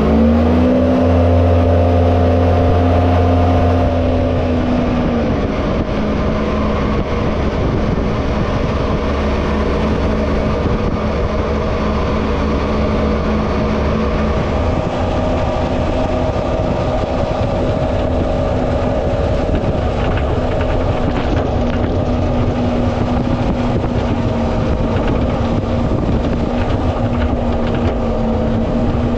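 Jet boat engine revving up and then running steadily at speed. Its pitch settles a little lower about five seconds in, over a steady rush of water and wind.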